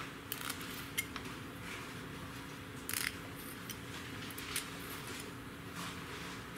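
Light, scattered clicks and scrapes of a thin metal pin and a small strip being handled by hand, over a steady low hum.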